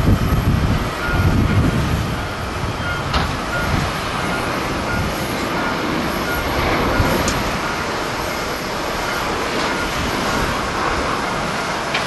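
Jet airliner's engines at takeoff thrust, a steady roar as it accelerates down the runway and lifts off, with strong wind buffeting the microphone in gusts over the first two seconds.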